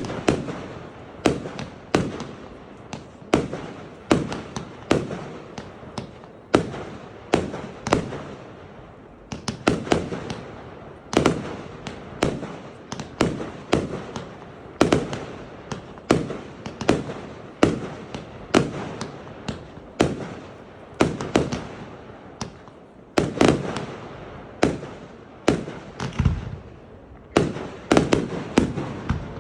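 Fireworks display: a steady barrage of sharp bangs from aerial fireworks bursting, one or two a second, each trailing off quickly.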